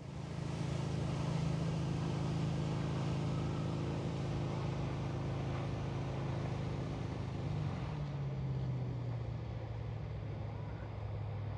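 An engine running steadily with a low, even hum; its pitch drops and settles lower about eight seconds in, as if easing off.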